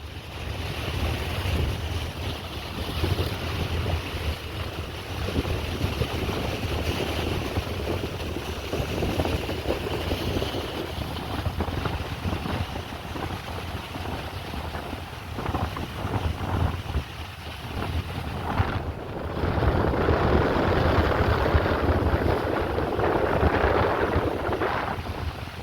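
Wind buffeting the microphone: a steady, rough rush with a heavy low rumble. It grows louder about three quarters of the way through.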